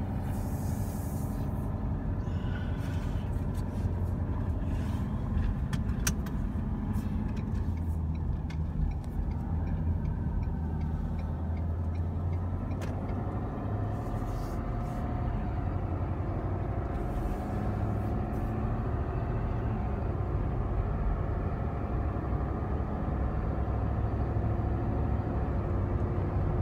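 Steady engine and road noise heard from inside a truck's cabin while driving on a highway, mostly a low rumble with a few faint ticks.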